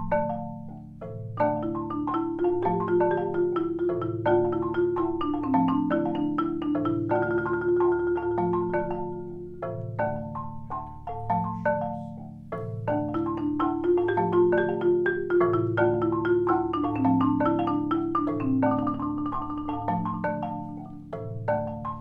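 Marimba quartet playing: quick repeated struck notes over a low sustained bass line, with the phrase easing off and starting again about halfway through.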